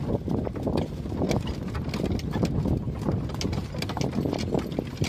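Hooves of several horses moving over the ground: rapid, irregular hoofbeats over a steady low rumble.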